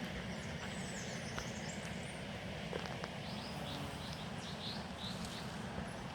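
Birds chirping repeatedly in short calls over a steady low rumble.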